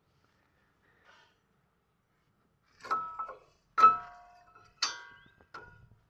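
Used disc brake pads of a Mahindra Scorpio, steel backing plates and clips, clinking against each other and the caliper bracket as they are fitted by hand. Five short metallic clinks with brief ringing start about three seconds in; the third is the loudest.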